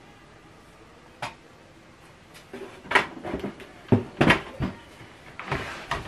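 A laptop being handled and shifted on a desk: a single click about a second in, then a string of irregular knocks and clatters in the second half.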